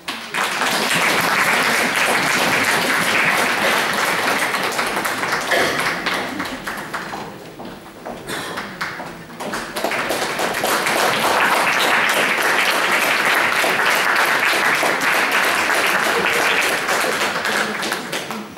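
Audience applauding in a hall, easing off about seven seconds in, then swelling again before it dies away near the end.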